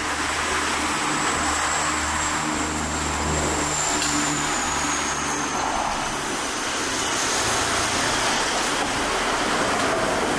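Steady background rumble and hiss, like road traffic, with a low engine-like hum that comes and goes.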